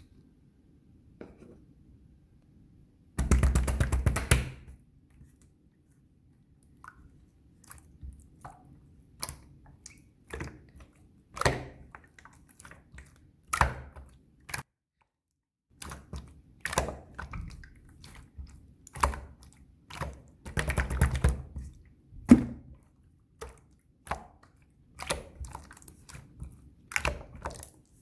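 Opaque yellow slime being squeezed, folded and poked by hand, giving sticky clicks and pops as trapped air bursts, every second or so, with two denser crackling spells.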